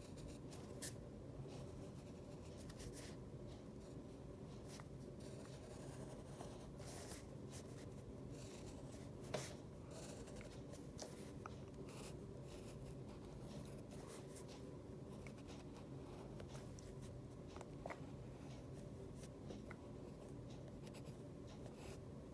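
Faint scratching of a black pen on paper as a drawing's outline is slowly inked in, short strokes coming and going over a low steady hum.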